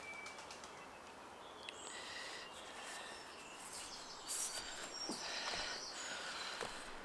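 Wild birds singing in the background, with short chirps and a quick repeated trill loudest about four to six seconds in, over light rustling from paper being handled as flowers are arranged in a book for pressing.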